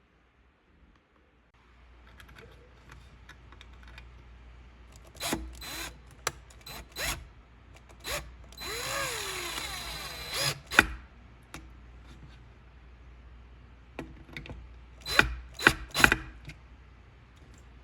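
A power drill runs for about two and a half seconds midway, its pitch bending as the speed changes. Sharp clicks and knocks come before it and again in a cluster near the end.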